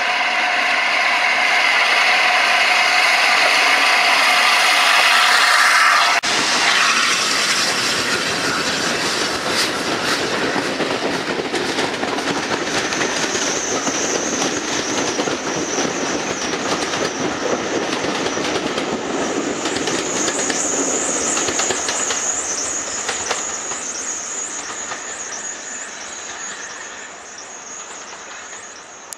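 LNER A1 Pacific steam locomotive No. 60163 'Tornado', a three-cylinder 4-6-2, hauling a passenger train up the bank, loud as it approaches. About six seconds in the locomotive passes and the sound changes abruptly to the coaches' wheels clattering over the rail joints, fading as the train draws away.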